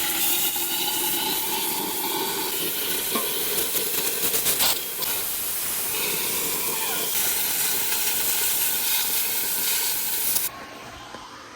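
A power cutting tool slicing open a steel bulldozer muffler: a loud, steady hiss with a faint whine under it that cuts off suddenly near the end.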